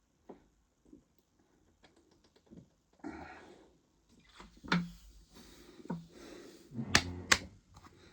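A person chugging fizzy lemonade from a plastic bottle: a series of sharp clicks and gulping swallows that grow louder, the two loudest close together near the end.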